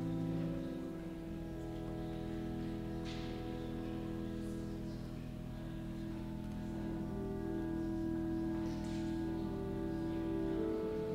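Slow instrumental music of long, held chords that change gently.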